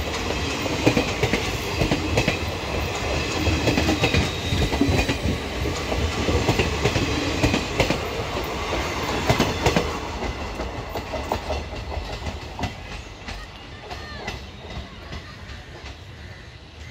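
Passenger express train's coaches running past close by at speed, wheels clattering over the rail joints with many sharp knocks. The sound fades from about ten seconds in as the last coach passes and the train draws away.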